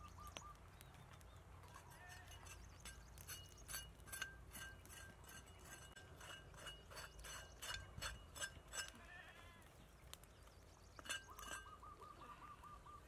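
A knife scraping over dried cowhide held at a campfire: a run of quick scrapes, about three a second, in the middle. A bird trills with rapid repeated notes near the end.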